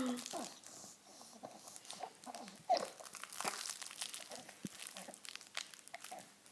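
Soft crinkling and rustling with scattered small clicks as a baby handles a toy puppy.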